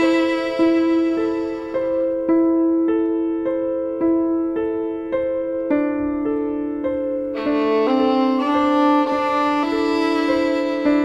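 Background instrumental music: a slow melody of held notes changing about every half second, thinning out about two seconds in and growing fuller again about seven seconds in.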